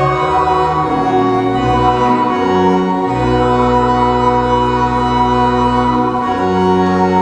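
Church organ playing slow, sustained chords, the bass notes shifting about a third of the way in and again near the end.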